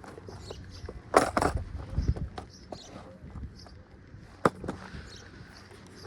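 A few sharp knocks and clicks over low rumbling handling noise, the loudest a double knock about a second in and a single one past four seconds.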